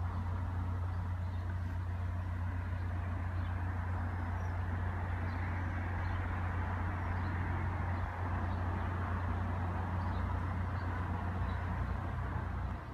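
Steady low engine rumble, with a few faint bird chirps above it; the rumble drops away suddenly near the end.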